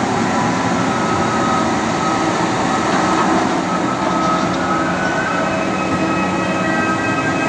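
Container-yard machinery running steadily: a loud mechanical hum with several thin whining tones over it, and a few more tones join about five seconds in.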